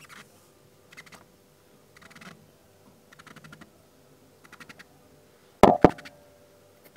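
Faint clicks and scrapes, in short clusters about once a second, from hands working a metal spin-on fuel filter canister on a Perkins diesel generator. Two sharp knocks follow in quick succession near the end and are the loudest sounds.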